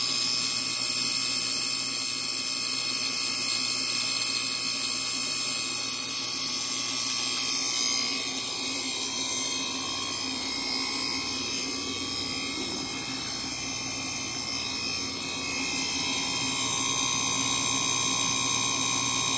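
Spectroil M/N rotating-disc oil analyzer during its measurement burn: a steady electrical buzz and hiss with several high whining tones, from the arc between the carbon rod electrode and the spinning carbon disc as it burns the oil sample.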